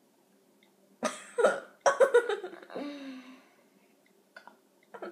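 Girls hiccuping: a cluster of sudden, sharp hiccup sounds about a second in, followed by a short falling vocal sound and a couple of faint clicks near the end.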